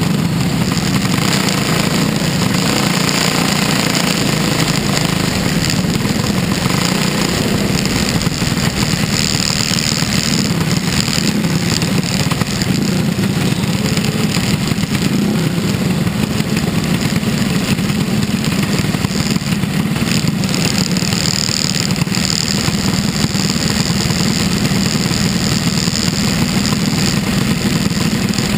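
Engine of an open-cockpit dirt-track race car running steadily, heard from inside the cockpit while the car drives around the track.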